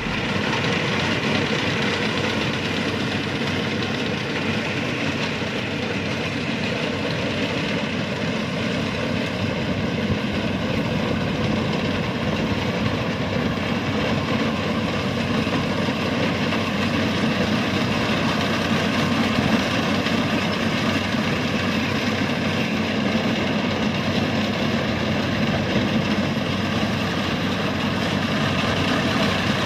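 Rice combine harvester's diesel engine and threshing machinery running steadily as it cuts ripe rice: a continuous even mechanical drone.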